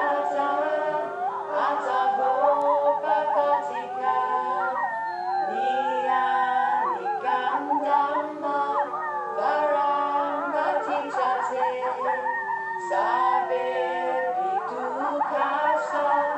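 Music of several voices singing held, wavering notes together.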